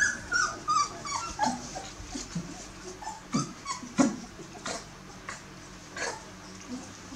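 Bearded collie puppies whimpering and squeaking: a run of short high squeaks falling in pitch over the first second or so, then scattered shorter, lower whines that thin out after about four seconds.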